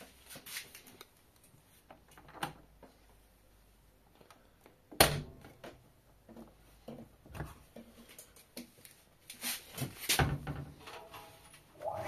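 Clicks and knocks of an AEG Öko-Lavamat front-loading washing machine's door being handled and pulled open. There is one sharp click about five seconds in and a cluster of knocks near the end.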